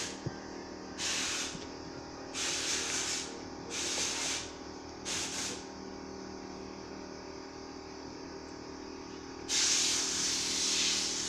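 Slime being poked and squished: four short hissy squelches, then a longer, louder one starting near the end.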